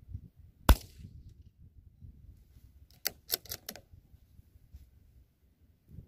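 A single shot from a CBC 8122 bolt-action .22LR rifle a little under a second in, then, some two seconds later, a quick run of four or five metallic clicks, the bolt being worked to eject the case and chamber the next round. Wind rumbles low on the microphone.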